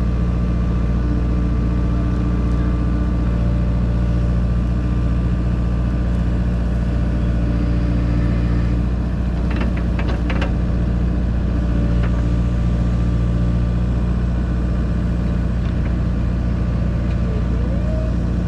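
Heavy diesel engine of construction equipment running steadily at constant speed. A few short knocks come about ten seconds in.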